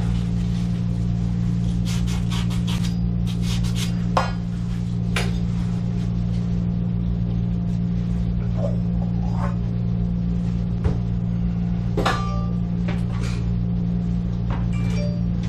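A steady low hum with several even pitch lines, with scattered light clicks and knocks over it.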